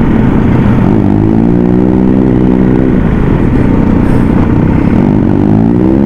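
Sport motorcycle engine pulling up through the revs from about a second in, easing off after about three seconds, then climbing again near the end under acceleration.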